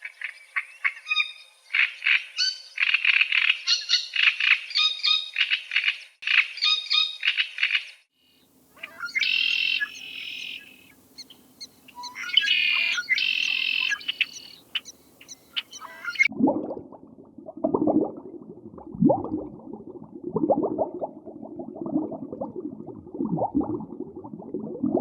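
Birds chirping in busy runs of high calls, with a change to a different bird clip over a steady low hum about eight seconds in. From about sixteen seconds, a lower-pitched run of short, rapid calls from another animal takes over.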